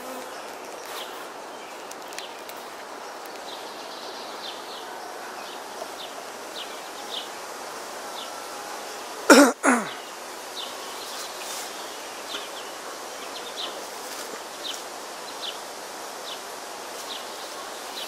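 Steady hum of a colony of honey bees buzzing over an open hive, with a single brief loud bump about halfway through.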